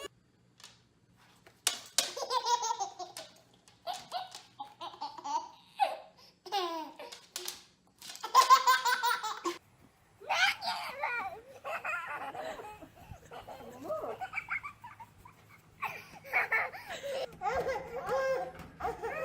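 A young child laughing in repeated bursts, starting about a second and a half in.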